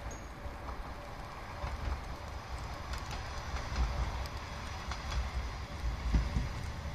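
A 1200-series diesel railcar approaching in the distance, its engine and wheels a low rumble that grows a little louder.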